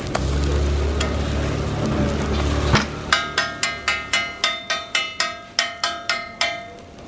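A low rumble, then from about three seconds in a run of ringing metallic clanks, about four a second, from a steel spatula tapped against a flat iron dosa griddle.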